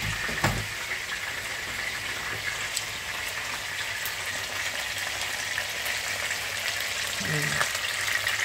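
Oil sizzling steadily with fine crackles around a whole fish frying in a nonstick pan. A short low thump comes about half a second in.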